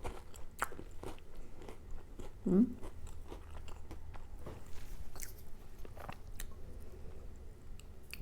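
Close-miked crunching and chewing of an MRE cracker topped with spread, in scattered crisp bites and crackles, with a short closed-mouth "mm" hum about two and a half seconds in.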